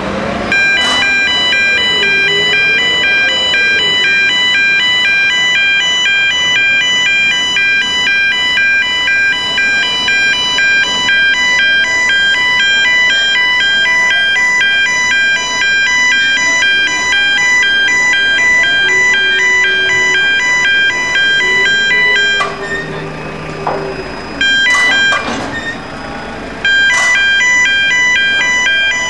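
Electronic warning alarm on a container crane: a shrill tone made of several pitches, pulsing on and off steadily while the crane works its load. It breaks off twice for a second or two near the end. A lower wailing tone rises and falls over the first few seconds.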